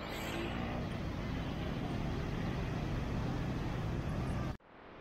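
Steady road-traffic noise with a low rumble. It cuts off abruptly about four and a half seconds in, and a similar, slightly quieter traffic noise resumes at once.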